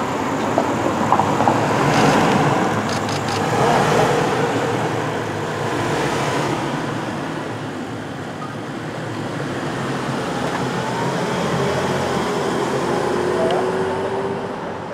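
Range Rover SUV driving off, its engine and tyre noise swelling and fading over steady city traffic noise.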